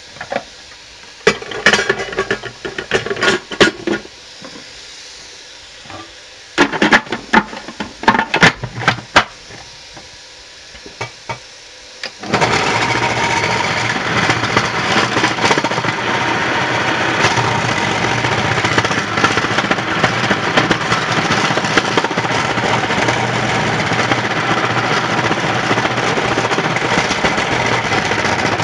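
Plastic knocks and clicks as the bowl and lid are fitted onto a Bosch MCM62020GB food processor. About twelve seconds in, its motor starts suddenly and runs steadily, slicing parsnips pushed down the feed tube onto the thick slicing disc.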